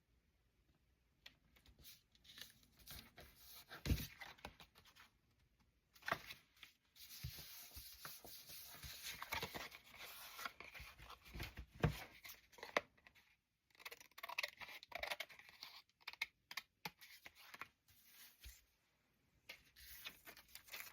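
Quiet rustling and scraping of paper and cardstock being handled on a work table, with a longer scratchy, tearing-like stretch in the middle and a few light knocks.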